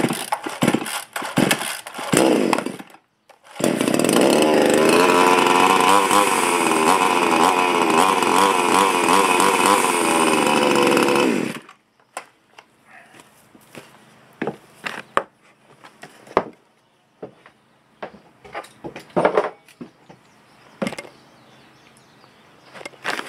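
Chinese knock-off two-stroke gas chainsaw pull-started: several quick yanks on the starter cord in the first few seconds, then it catches and runs loudly for about eight seconds, revving up and down, before cutting off suddenly. Scattered light knocks follow.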